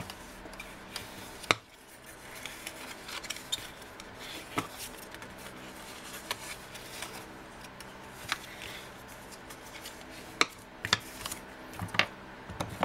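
Bone folder rubbing and scraping along the score lines of white cardstock to burnish the folds, with paper rustling and scattered sharp clicks and taps.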